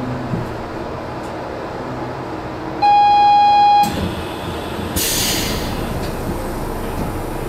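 Rubber-tyred Portliner automated guideway train running steadily, heard from inside the front of the car. About three seconds in, a loud steady beep sounds for about a second, the loudest thing here, and about two seconds later a burst of hiss starts and fades away.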